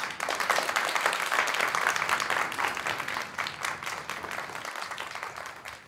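Audience applause, many hands clapping: it breaks out suddenly, is strongest over the first couple of seconds, then slowly dies away.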